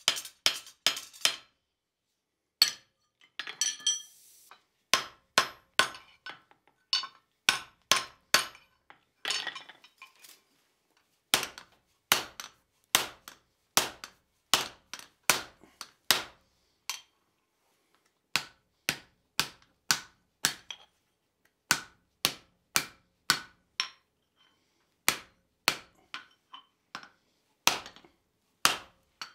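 Hand hammer striking a steel drift to open the hot eye of a railroad-spike tomahawk head: sharp, ringing metal-on-metal blows about one a second, with a few short pauses.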